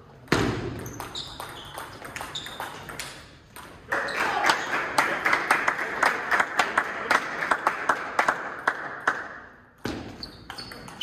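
Indoor court sport in a hall: a hard ball strike about a quarter second in, then scattered impacts and short high shoe squeaks. From about four seconds in, several seconds of clapping and shouting end abruptly.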